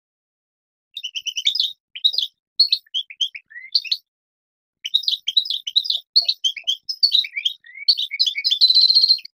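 European goldfinch singing: quick twittering phrases beginning about a second in, a brief pause near the middle, then an unbroken run that ends in a fast buzzy trill.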